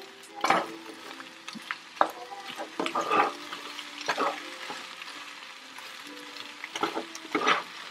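Wooden spatula stirring potatoes, sausage and bell peppers in a nonstick frying pan, with several scraping strokes over a steady sizzle.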